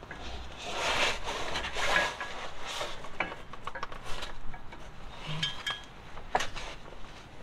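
A steel pry bar scraping and clinking against the trailer's swing-arm mount as the mounting bolt is worked loose. There is a run of rough scraping in the first three seconds, then scattered sharp metallic clinks, with a brief ring here and there.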